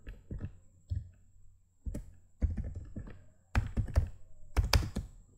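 Computer keyboard being typed on: irregular key taps in small clusters with short pauses between them.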